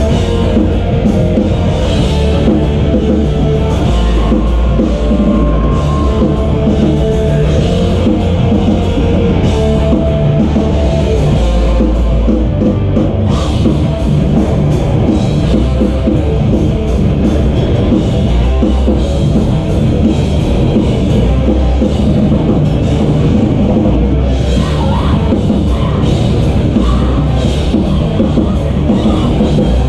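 Live heavy rock band playing loudly, with a pounding drum kit and electric guitar, steady in level.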